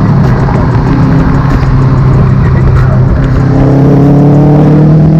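Car engine running hard under acceleration, its pitch climbing steadily through the second half.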